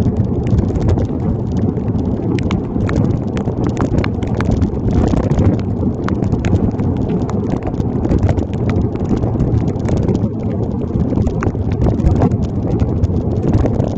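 Rain tapping and rattling on a waterproof phone bag on a bicycle's handlebars while riding, many sharp little clicks over a steady low rumble of wind and tyres on wet road.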